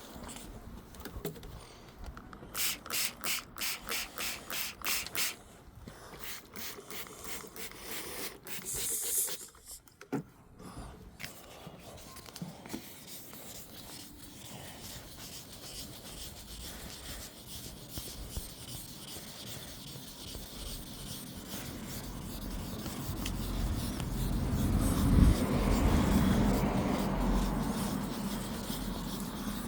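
Wet sanding of car paintwork with 2500-grit sandpaper: even back-and-forth rubbing strokes about three a second for a few seconds, then looser, uneven rubbing that grows louder near the end, with one sharp knock at its loudest.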